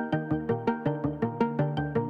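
Background music with a quick, even run of notes, about six a second.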